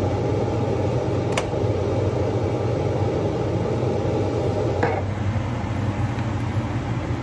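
Kitchen range hood exhaust fan running steadily: an even rushing noise over a low hum. A sharp click comes about a second and a half in, and a light tap near five seconds.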